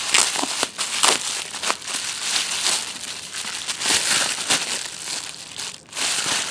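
Plastic bubble wrap crinkling and rustling as it is handled and unfolded, with many small crackles.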